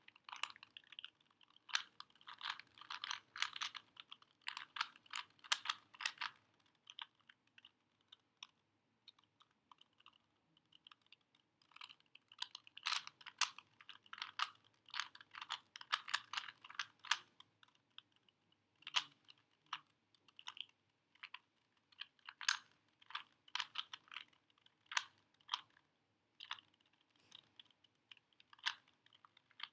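Rubik's Cube faces being turned by hand: quick runs of plastic clicking and clacking in bursts, with short pauses between runs of moves.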